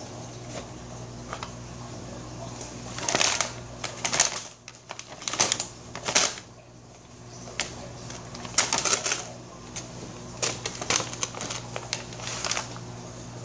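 Brown paper bag rustling and crinkling in short irregular bursts as a hand presses on it and a cat moves inside it, over a steady low hum.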